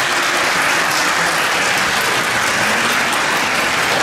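Spectators applauding with steady clapping, in response to a point just scored in a kendo bout.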